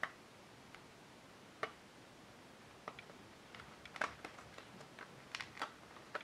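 Faint, scattered clicks and crackles of a paperback picture book's pages being handled and turned, coming closer together in the last couple of seconds as a page is turned.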